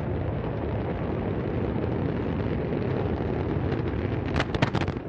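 Steady low rumble of the Antares rocket's first-stage engines during launch, with a quick series of sharp cracks about four and a half seconds in.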